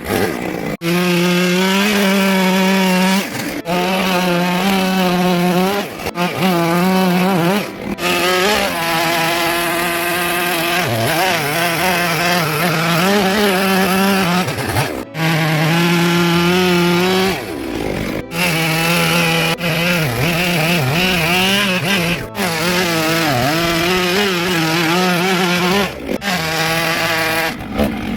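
Two-stroke chainsaw running at high revs while carving wood, its pitch dipping and recovering as the chain bites and frees. The sound breaks off abruptly for an instant several times.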